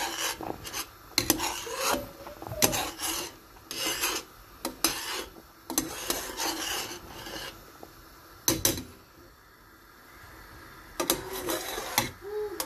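Metal spoon scraping and rubbing against a steel pot in repeated rasping strokes, about one or two a second, as it presses tea bags down in boiling milky masala chai. The scraping pauses for about two seconds past the middle, then starts again.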